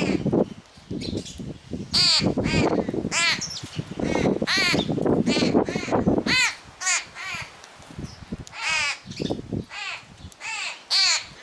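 Birds giving a rapid run of harsh, cawing calls, each dropping in pitch, as a crying young bird begs and is fed.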